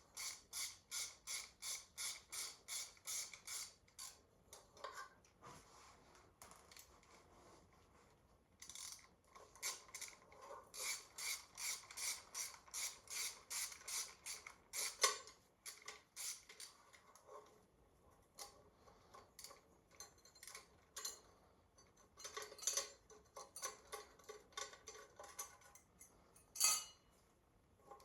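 Hand ratchet wrench clicking as it is worked back and forth on engine bolts, in runs of quick strokes about three a second, with pauses between three spells.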